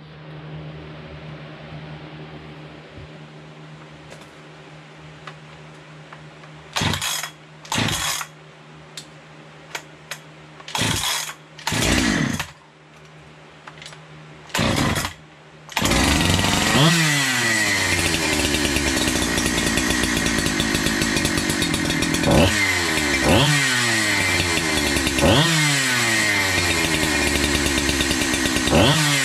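Husqvarna 365 two-stroke chainsaw being pull-started, with several short cranking pulls before it catches a little past halfway, then running with its throttle blipped about half a dozen times, the pitch shooting up and dropping back each time. It is a test run just after repair.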